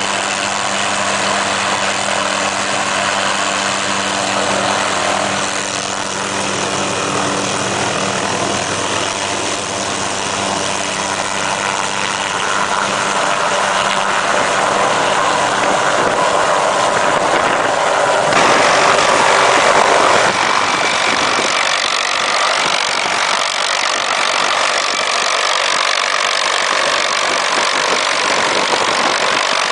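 MD 500 helicopter's turbine engine and rotor running as the helicopter lifts off and hovers. The engine's steady whine fades about a third of the way in while the rotor noise gets louder. The sound then drops back abruptly about two-thirds of the way through.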